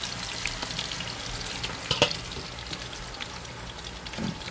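Sliced breadfruit deep-frying in hot oil in a black wok. It sizzles steadily, with scattered small crackles and a sharper pop about two seconds in.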